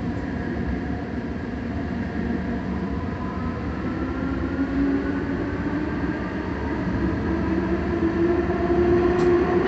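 Alstom Citadis Spirit light-rail car of Ottawa's O-Train Confederation Line running through a tunnel, heard from inside the car: a steady rumble of wheels on rail with a whine that rises in pitch, growing louder over the last few seconds.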